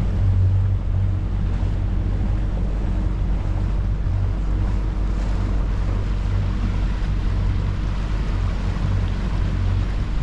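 A boat's outboard engine running steadily at low speed with an even low hum, moving an inflatable boat slowly over calm water.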